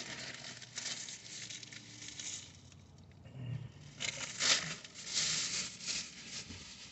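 Paper burger wrapper rustling and crinkling in short, scattered bursts as a burger is handled and bitten into, loudest in the second half, with chewing.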